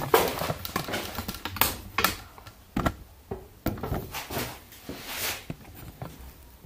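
Irregular clicks and knocks with a brief rustle about five seconds in: handling noise from the camera being picked up and moved.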